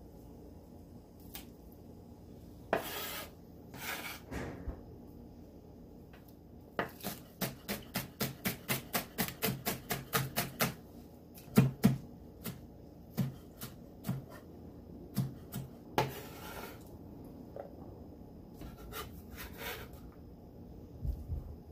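Knife chopping green onions on a wooden cutting board: a quick, even run of knocks, about five a second, lasting about four seconds, then a few louder single knocks. Scraping and rubbing of a bench scraper on the board come before and after.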